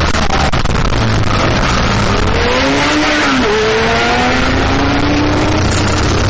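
BMW R1200GS flat-twin motorcycle under way, with heavy wind rush over the microphone. The engine note climbs under acceleration, breaks about three and a half seconds in as it changes gear, then climbs again.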